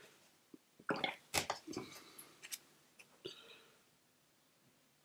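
Crumpled paper towel crinkling and rustling in the hand, a cluster of short crackles from about a second in until about three and a half seconds in.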